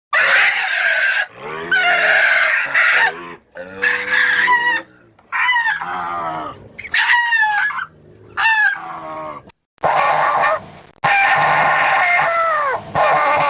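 A rapid string of edited creature sound effects: short pitched squawking cries with bending pitch, one after another and each cut off abruptly, with a denser, longer call from about ten seconds in that has falling glides near the end.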